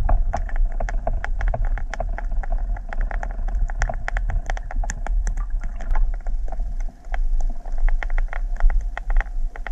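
VMC Neon Mooneye jig head with a Jackall Rhythm Wave swimbait, retrieved along a rocky lake bottom and heard underwater: a rapid, irregular clicking and ticking, several clicks a second, over a steady low rumble. It could sound like a crayfish moving through the rocks.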